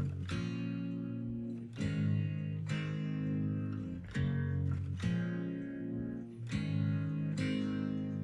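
Background music: strummed acoustic guitar with a steady rhythm, a strum about every second.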